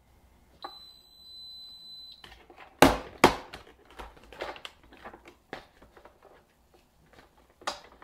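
A click and a steady high electronic beep lasting about a second and a half, then two sharp knocks close together, the loudest sounds here, followed by a run of smaller clicks, taps and rustles of things being handled.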